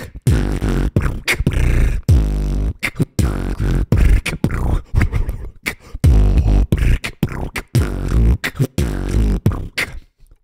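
Beatboxing into a close microphone: deep humming bass tones chopped up by sharp kick and snare sounds in a quick, broken rhythm, with a short pause near the end.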